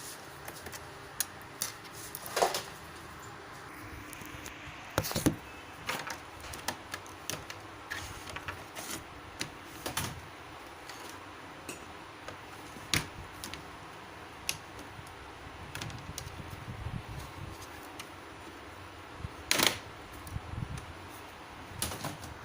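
Irregular clicks and knocks of hard objects being handled, with louder knocks about 2.5, 5, 10, 13 and 19.5 seconds in, over a steady background hum.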